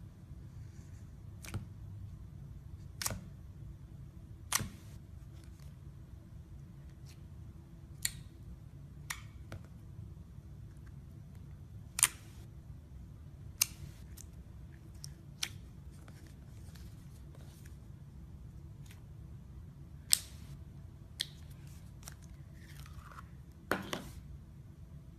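Slime being pressed and stretched by hand, giving sharp, irregularly spaced clicks and pops, about fifteen in all, over a steady low hum.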